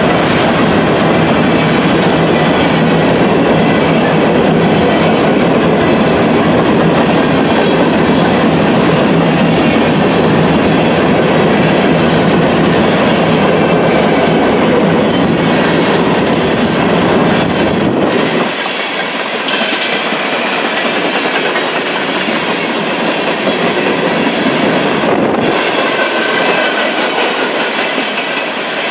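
Norfolk Southern freight train's cars rolling steadily past on the rails. The deep low rumble drops away about eighteen seconds in, leaving a lighter rolling hiss.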